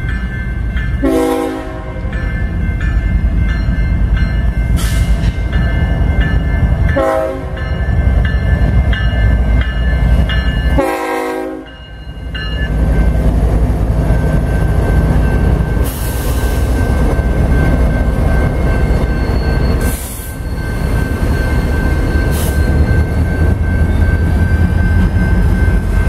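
A BNSF diesel coal train sounds its horn three times in the first dozen seconds, the last blast the longest, as it reaches a grade crossing with the crossing bell ringing. Then the locomotive and loaded coal hopper cars roll through with a steady heavy rumble.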